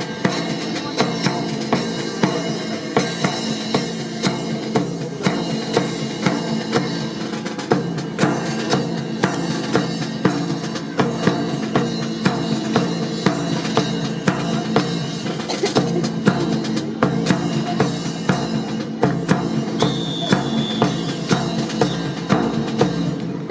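Marching drum cadence with snare and bass drum keeping a steady beat to accompany a drill performance.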